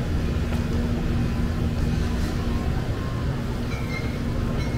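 Steady rumble of city street traffic, with a low engine hum that fades out about halfway through.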